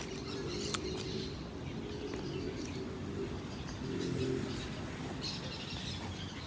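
Birds calling with low-pitched cooing that goes on throughout, and one sharp click about three-quarters of a second in.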